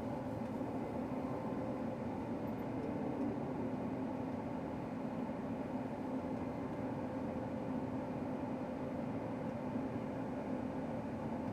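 Combine harvester running steadily as it drives down the road, heard from inside the cab: an even engine drone with a constant low hum.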